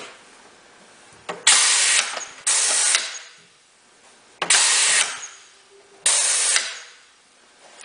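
Air-powered french fry cutter's pneumatic cylinder stroking, with four short, sharp-edged hisses of compressed air in two pairs as the pusher plate drives the potato through the knives and draws back.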